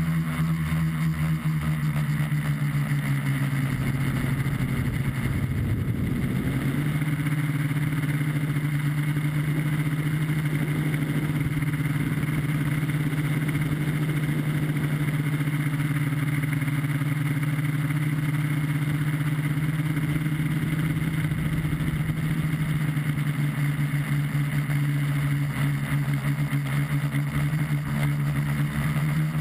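Tricopter's three electric motors and propellers buzzing in flight, heard from the onboard camera as a steady drone. The pitch wavers and breaks up for a few seconds near the start as the throttle changes, then holds steady.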